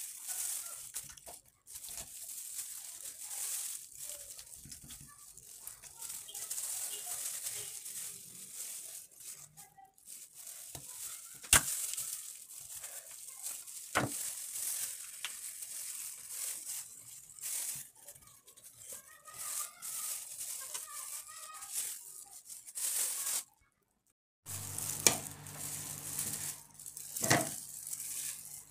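A knife cutting apart a raw whole chicken in a steel bowl: skin and flesh tearing, the crinkle of plastic food-handling gloves, and a couple of sharp knocks of the blade. Near the end, pieces of vegetable are dropped into a plastic food-chopper bowl with a few light clacks.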